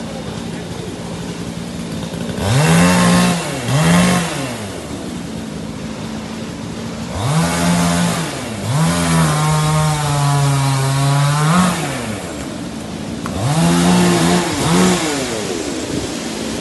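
Chainsaw revved up hard in bursts and dropped back to idle between them: two short revs, then a long rev held for about four seconds, then two more short revs.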